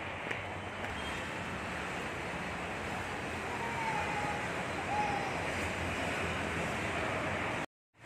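Steady hiss of road traffic passing below, mixed with wind on the microphone, with two faint short tones about four and five seconds in; it cuts off suddenly just before the end.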